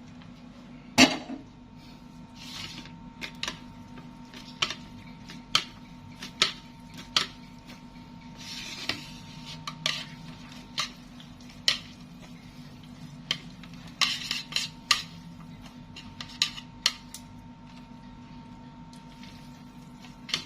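Utensil clinking and scraping against cookware in irregular strikes, with a few short scraping passes, over a faint steady hum. The loudest clink comes about a second in.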